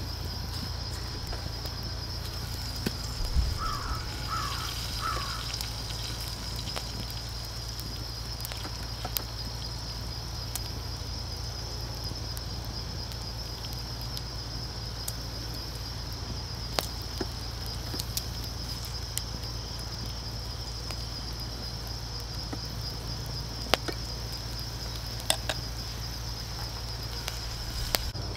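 Steady, pulsing high buzz of insects chirring throughout, with a few short crow caws about four seconds in. A few sharp clicks are scattered through.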